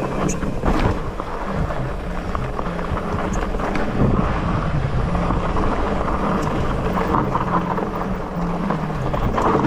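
Wind buffeting the microphone and tyres rumbling over a dirt trail as the Polygon Siskiu T8 mountain bike is ridden downhill, a steady rushing noise throughout.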